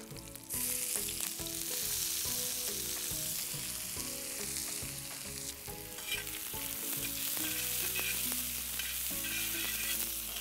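Chopped onions frying in hot oil with tempering spices on a hot cooking pan. The sizzle comes up suddenly about half a second in as the onions go in, then runs on steadily while a spatula stirs them, scraping against the pan a few times.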